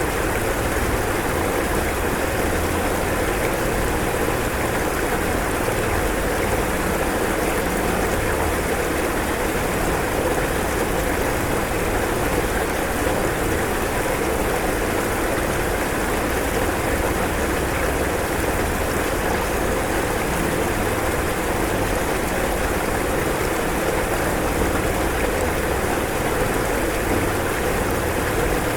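Rushing floodwater: a steady, unbroken rush of churning water.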